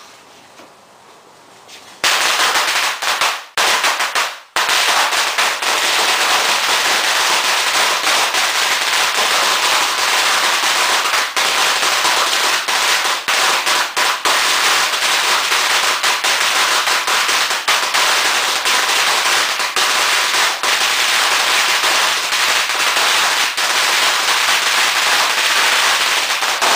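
A long roll of 20,000 red firecrackers going off in a dense, unbroken rapid-fire crackle. It starts about two seconds in, stutters briefly twice soon after, then runs on without a break.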